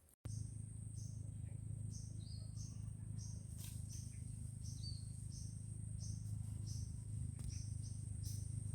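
Forest ambience: a bird chirping over and over in short, evenly spaced notes, about two a second, over a steady high-pitched insect drone and a steady low hum.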